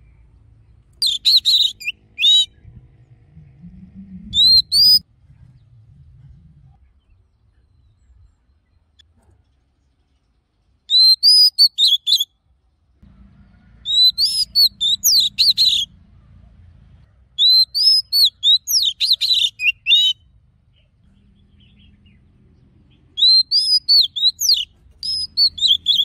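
Oriental magpie-robin singing in about six bursts of rapid, sweeping whistled phrases, each a second or two long, with pauses of a few seconds between them.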